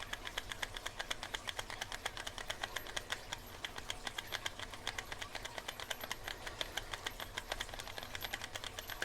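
SouthOrd tubular lock pick being twisted in a tubular lock, giving a fast, even run of faint clicks, about seven a second, as the pick works the lock's pins during picking.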